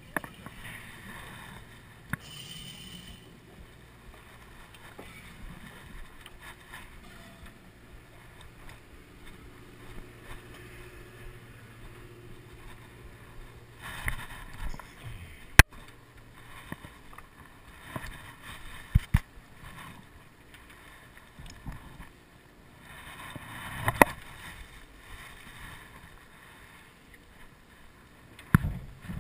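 Deck ambience of a boat at sea, with a low steady hum through the first half. Several sharp knocks and clicks are scattered through it, the loudest about halfway and near the end.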